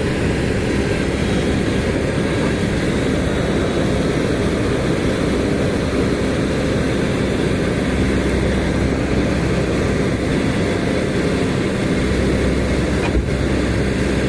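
Heavy diesel engine running steadily, with a single short knock about thirteen seconds in.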